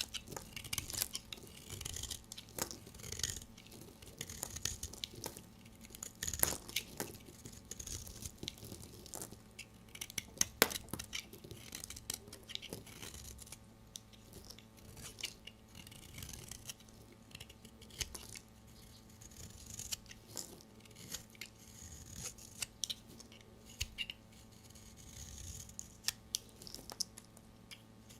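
Knife cutting through bars of soap: an irregular run of crisp, crunchy cuts and scraping strokes, with one sharper crack about ten and a half seconds in.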